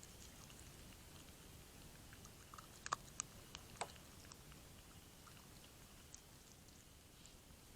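Faint scattered clicks and crunches over a low steady hiss, the loudest in a short cluster about three to four seconds in.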